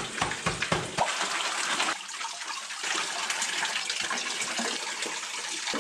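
Water sloshing and swirling in a gold pan as vein material is test-panned, with quick splashy surges in the first second, then a steady wash of water.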